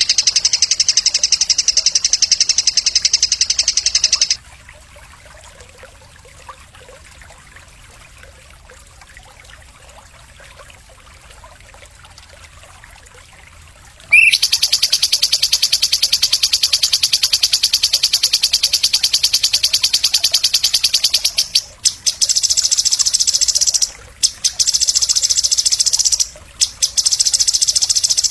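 A fast, high, rattling trill in long unbroken runs: a masteran call recording used to teach songbirds. It stops about four seconds in, leaving only faint hiss, and starts again about ten seconds later, running on with a few brief breaks.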